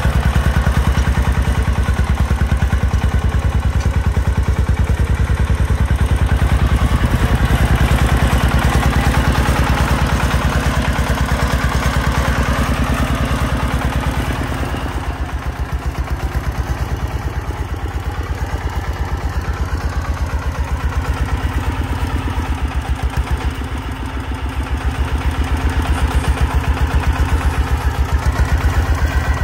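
Công nông farm truck's diesel engine chugging with a fast, even beat as it hauls a full bed of soil over rough ground. It fades somewhat midway and grows louder again near the end as the truck comes back.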